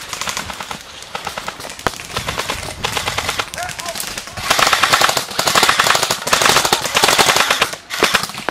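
Airsoft electric guns firing full-auto as rapid strings of clicks. From about four and a half seconds in, a louder run of close bursts comes from an AGM M16 replica, stopping shortly before the end.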